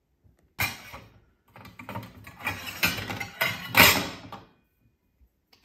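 Small stainless-steel toy pots and bowls clanking and clattering together as a child handles them in a toy kitchen sink. One sharp clank about half a second in, then a run of clatter, loudest near four seconds.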